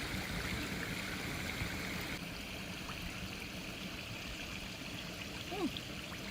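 Steady rush of running water, dulling slightly about two seconds in, with a few faint short chirps near the end.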